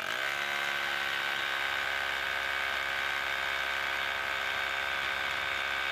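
Hitachi DH26PF 1-inch SDS Plus rotary hammer drilling into a concrete block with a masonry bit. It spins up at the start, then runs at a steady pitch under load.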